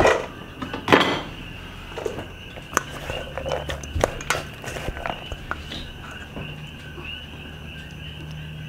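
A spatula stirring and tossing shredded cabbage salad in a stainless-steel mixing bowl: scrapes and clinks of the utensil against the metal, loudest right at the start and about a second in, then lighter taps. Insects chirp steadily in the background.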